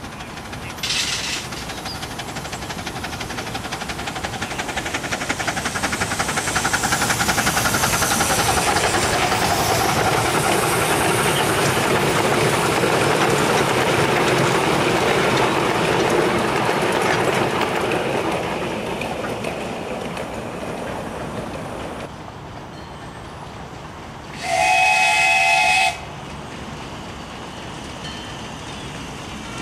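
Miniature steam train running past, the sound of the locomotive and coaches on the track swelling as they pass close by and then fading. Near the end a steam locomotive whistle sounds once, a steady blast of about a second and a half.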